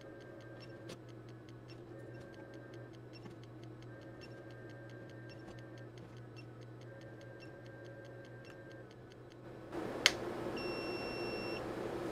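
High-voltage transient generator ticking steadily several times a second as it fires surge pulses, with a high whine that switches on and off. Near the end a hiss comes up, with a single click and a beep of about a second.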